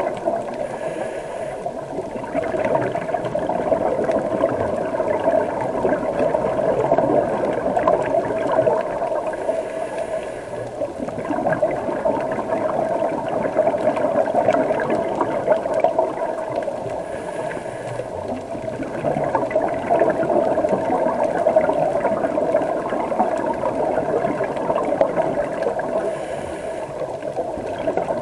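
Scuba diver's breathing heard through an underwater camera housing: a steady bubbling, gurgling wash of exhaled bubbles, with a short hiss of the regulator on each inhale roughly every eight seconds.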